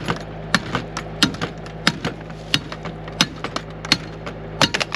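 Repeated hard strikes on a Master Lock padlock, about three a second and unevenly spaced, as it is hammered with a tool to bust it open.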